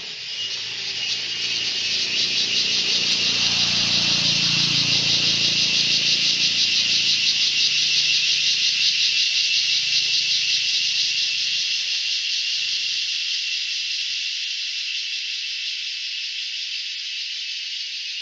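Loud, steady insect chorus, a high, dense hiss with a fast pulsing, swelling to its loudest in the middle and easing off near the end. A faint low rumble rises and fades underneath in the first half.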